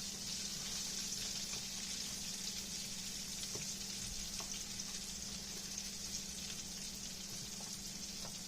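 Chicken legs deep-frying in hot oil: a steady sizzling hiss with faint scattered crackles.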